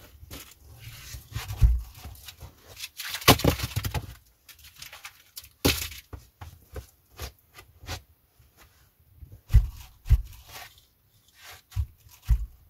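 Irregular wooden knocks, clunks and scrapes as an armful of split firewood logs is carried in and set down. Near the end, more knocks as the plank door is handled.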